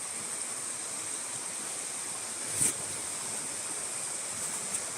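A river flowing steadily, a continuous even rush of water. About halfway through there is a brief soft swish.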